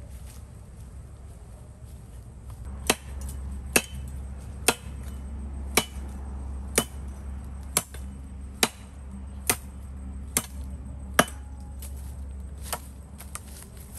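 Firewood being chopped by hand: about ten sharp blows, a little under a second apart, starting about three seconds in, then a couple of weaker strikes near the end.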